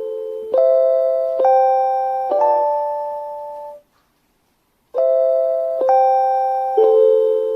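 JR Hokkaido's guidance chime for blind passengers playing a short sequence of bell-like electronic tones, one struck about every second and each ringing on as it fades. It falls silent for about a second near the middle, then starts the sequence again.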